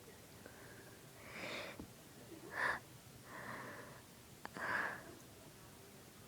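A person's noisy, gasping breaths building up to an induced sneeze, with a short sharp burst of breath a little before halfway through, the loudest moment, and another a little after.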